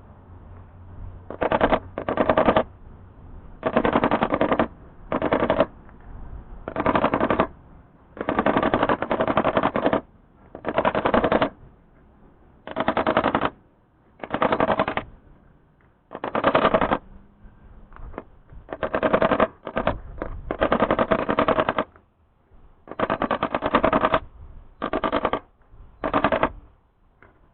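Repeated short bursts of rapid mechanical rattling, each lasting from about half a second to two seconds, with brief pauses between them.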